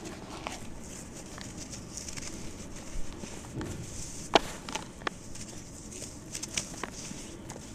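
Hands crumbling and squeezing lumps of damp, reused cement in a basin: soft gritty crunching with scattered sharp crackles, the sharpest about four and a half seconds in.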